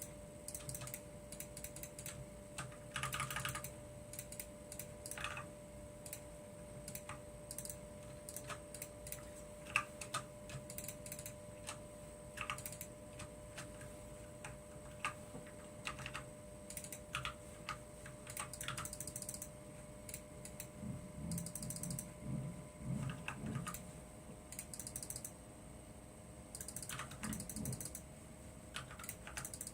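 Computer keyboard keys being pressed: scattered single keystrokes and a few short, quick runs of them, over a faint steady electronic whine.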